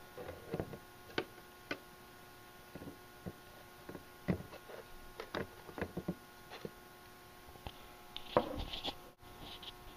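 Faint, irregular small clicks and taps, one somewhat louder cluster near the end, over a faint steady hum.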